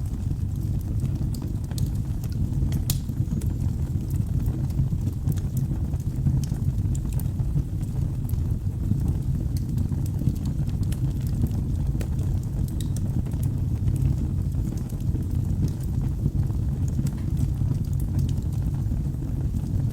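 Wood fire burning in a fireplace: a steady low rumble of flames with scattered, irregular sharp crackles and pops from the burning logs.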